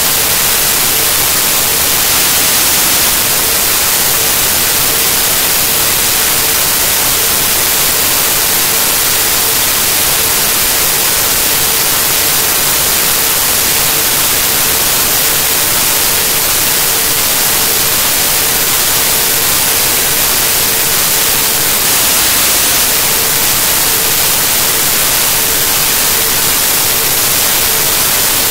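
Loud, steady static hiss like white noise, with a faint steady tone underneath that drops out briefly about two-thirds of the way through.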